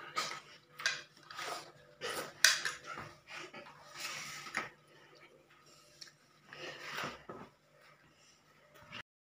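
Spoon tapping and scraping on a plate while eating, in irregular short clicks and scrapes, the loudest about two and a half seconds in. The sound cuts off abruptly near the end.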